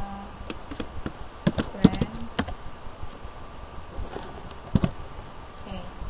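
Computer keyboard being typed on: scattered key clicks, thickest between about half a second and two and a half seconds in, then two more a little before the end.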